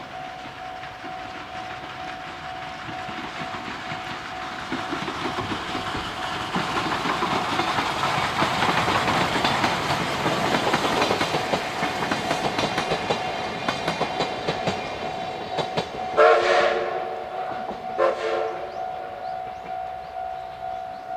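Steam locomotive hauling passenger coaches passing close by, its running noise building to a peak about ten seconds in with quick rhythmic beats. Then two blasts on its steam whistle about two seconds apart, the first longer.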